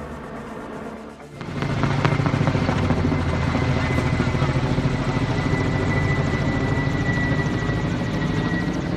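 Kamov coaxial-rotor helicopter flying close overhead, carrying an underslung water bucket: fast rotor chop with a steady high turbine whine. It gets much louder about a second in; before that a helicopter is heard more faintly.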